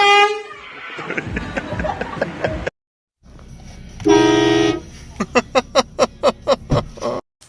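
Air horn blasts. A loud blast comes right at the start, and a second steady blast about four seconds in. It is followed by a rapid string of about nine short toots, roughly five a second.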